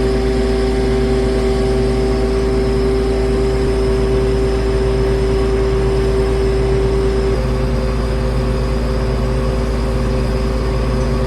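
Heavy engine running steadily at a constant pitch, with its tone stepping up slightly about seven seconds in.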